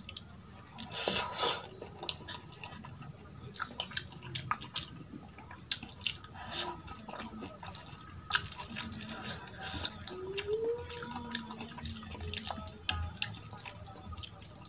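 Fingers squishing and mixing rice into runny dal on a steel plate: a string of wet clicks and smacks.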